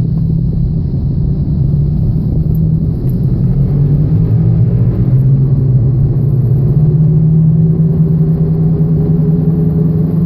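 Worn front wheel bearing of a 2007 Chevrolet Aveo droning under road noise while the car is driven. It is a steady low drone that rises slightly in pitch in the second half.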